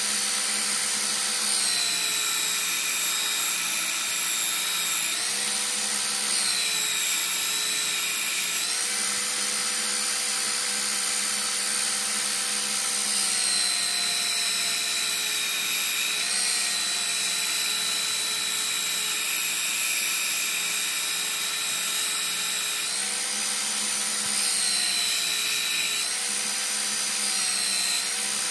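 Einhell TC-BS 8038 800-watt belt sander, mounted belt-up, running steadily with a steel blade held against the moving abrasive belt to grind its edge. Its motor whine sags a little in pitch and recovers several times as the blade is pressed on and eased off.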